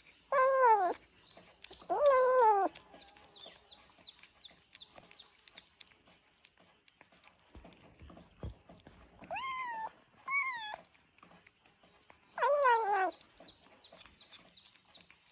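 Kitten meowing loudly while eating canned cat food for the first time: three long calls that fall in pitch and two shorter, higher ones about nine and ten seconds in, with faint quick ticks in between.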